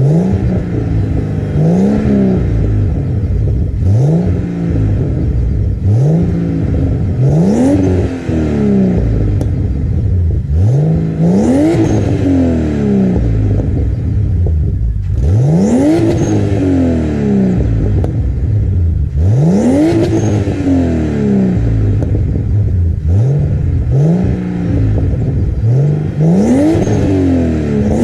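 Turbocharged BMW E46 328i's M52B28TU straight-six, through a 3-inch exhaust with a Magnaflow muffler, being revved in repeated throttle blips about every two to four seconds, each rising quickly and dropping back toward idle. A few revs near the middle go higher than the rest.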